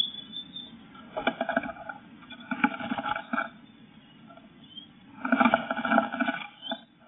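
Eurasian blue tit scrabbling and fluttering inside a wooden nest box: its feet scrape on the bare board and moss and its wings beat against the walls. This comes in three short bursts, the longest near the end.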